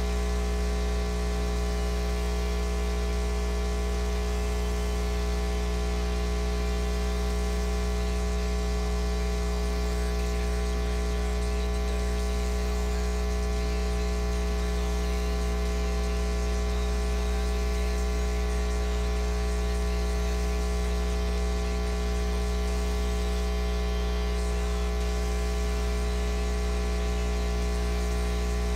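Steady electrical mains hum and buzz with a layer of hiss: a strong low drone with many steady tones stacked above it.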